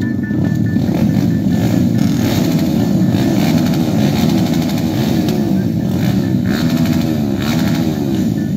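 Several small dirt bike engines running together at a starting line, their throttles blipped so the engine notes rise and fall over one another while the riders wait for the start.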